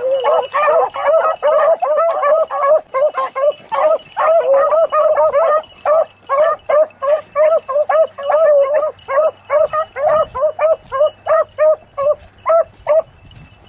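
A pack of beagles baying in quick, repeated yelps as they run a rabbit's scent trail. Several dogs overlap at first, thinning to a steady run of single yelps that stops shortly before the end.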